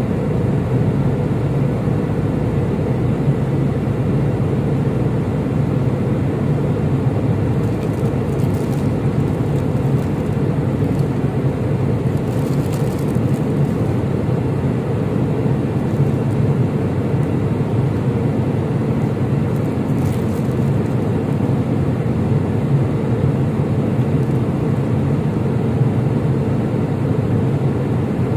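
Steady drone of an airliner cabin in flight: even engine and air noise, strongest in the low range, with no change in level.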